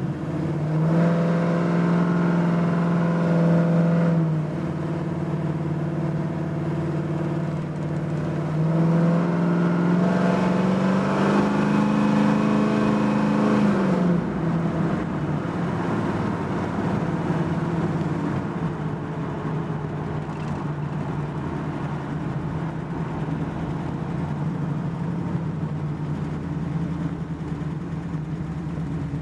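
1974 Chevrolet El Camino SS's 454 big-block V8 pulling hard twice, the engine note louder and rising in pitch during the second pull, then settling back to a lower, steady cruise. Heard from inside the cab while driving.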